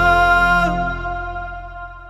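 Music ending: the song's final held chord, whose upper notes cut off under a second in while the rest fades steadily away.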